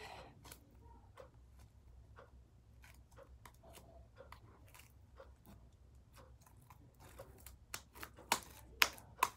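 Faint sticky clicks and wet smacks of gum-and-shaving-cream slime being worked and pulled off the fingers, sparse at first and louder and more frequent in the last couple of seconds.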